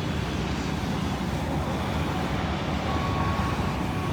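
Steady low rumble of city traffic. A faint steady tone comes in about three seconds in.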